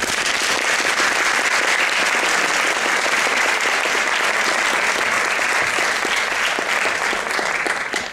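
Audience applauding, a dense clapping that starts abruptly and falls away near the end.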